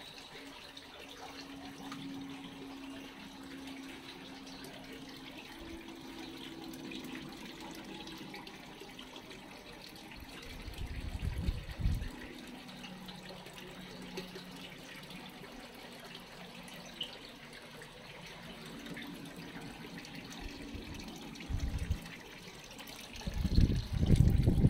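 Water trickling steadily, with a faint hum under it. Loud low rumbles break in about halfway through, briefly again later, and near the end.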